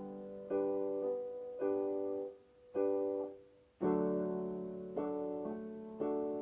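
Piano playing a slow accompaniment with no singing: a chord struck about once a second, each ringing and fading before the next.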